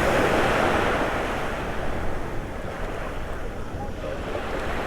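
Ocean surf washing up the beach, with wind buffeting the microphone; the rush of water is loudest near the start and eases off after a couple of seconds.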